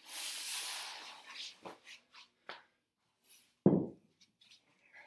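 A folded pad being slid across a concrete floor by hand, a scraping rustle for about the first second, followed by a few light clicks. About three and a half seconds in comes a single dull thud, the loudest sound, as something is set down on the floor.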